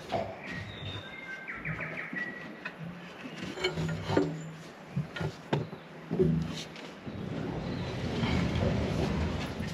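A bird sings a few clear whistled notes and a quick run of repeated notes near the start. Then come knocks and clunks of rope and gear being handled on an aluminium boat.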